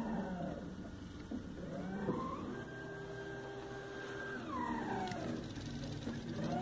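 Stepper motors salvaged from a Canon copier drive a homemade CNC plotter's bed and belt axis, whining as they move. The whine rises in pitch as they speed up, holds steady for about two seconds, then falls as they slow.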